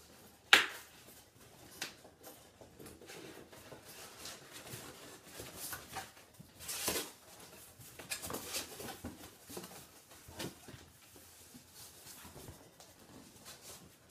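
A cardboard shipping box being opened by hand: flaps and tape pulled, cardboard scraping and rustling. A sharp snap comes just after the start, and a longer rasp about seven seconds in.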